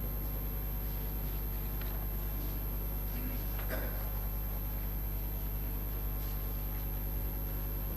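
Steady low hum of the chamber's live microphone feed, with a few faint scattered clicks and rustles.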